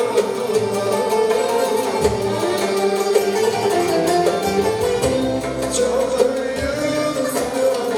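Turkish folk music played by an ensemble: a continuous melody line over a steady accompaniment.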